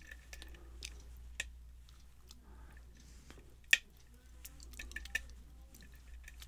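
Lock pick working the pins of a brass Yale pin-tumbler cylinder under tension: faint, scattered small metallic clicks and scrapes, with one sharper click a little past the middle.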